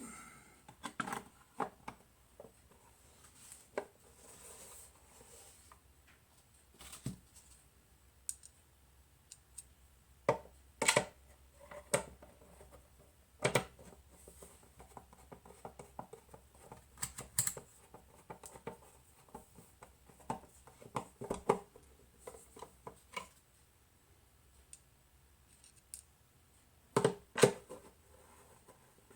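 Irregular clicks, knocks and light scraping of parts and hand tools being handled while a Weller TC202 soldering station is reassembled, with a couple of louder knocks near the end.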